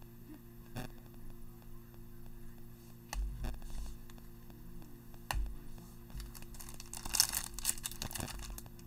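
A steady low electrical hum with a few small clicks as trading cards are handled, then, from about seven seconds in, a plastic trading-card pack wrapper crinkling and tearing open.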